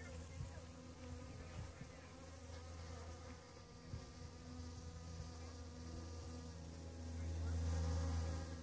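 Honeybees buzzing as they work saguaro cactus flowers: a steady hum that swells louder about seven seconds in.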